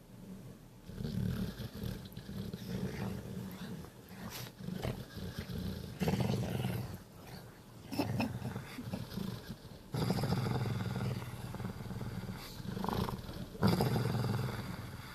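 Pit bull snoring loudly, a series of deep, drawn-out snores each a second or two long, one after another.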